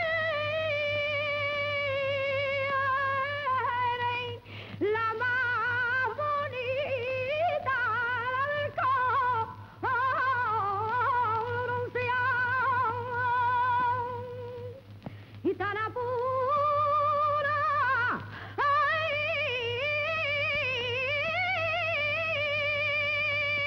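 A single high voice singing unaccompanied in long, ornamented held notes with a wide vibrato, its phrases broken by brief breaths every few seconds. A steady low hum runs beneath.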